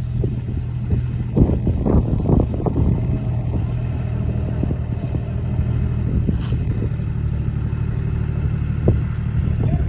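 Small tractor's engine running steadily under a heavy load of sugarcane, pulling slowly over rough ground. Several knocks and rattles come between about one and three seconds in.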